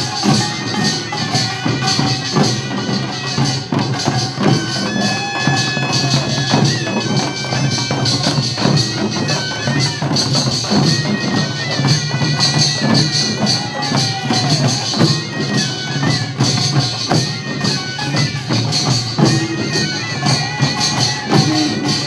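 Korean farmers' band music (pungmul/nongak): a dense, steady clatter of small gongs and drums with a reedy, nasal melody of held, wavering notes over it, typical of the taepyeongso shawm.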